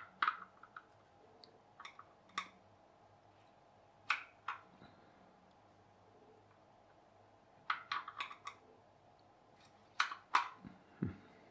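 Light clicks and taps from an aluminium-tray pop pop boat and a plastic dropper being handled while water is put into the boat's aluminium tube boiler. The clicks come singly or in small groups every second or two, with a quick cluster about eight seconds in.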